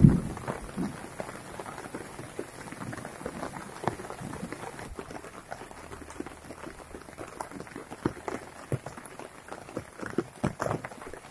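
Steady light rain falling on a garden, with irregular close taps and knocks, more of them near the end.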